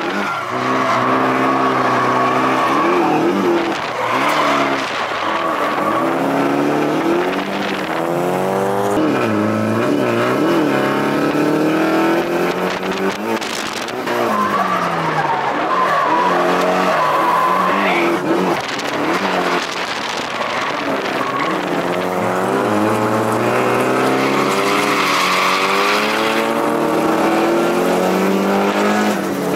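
Nissan 180SX engine revving up and down repeatedly while the car drifts, heard from inside the cabin, with the tyres squealing at several points as they slide.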